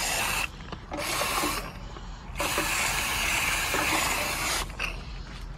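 Water jet from a trigger spray gun hitting the compressor shell and base of an air-conditioner condenser cabinet, rinsing out dirt and debris. It comes in three bursts: two short ones, then a longer one of about two seconds.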